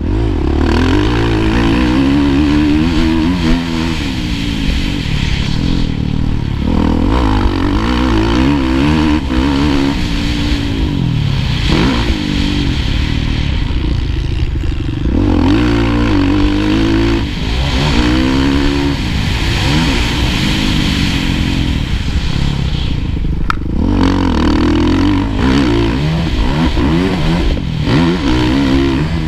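Kawasaki KX450F's 450 cc single-cylinder four-stroke motocross engine at race pace, heard from a camera on the bike. It is loud throughout, its pitch climbing and dropping back again and again as the rider accelerates, shifts and rolls off into corners.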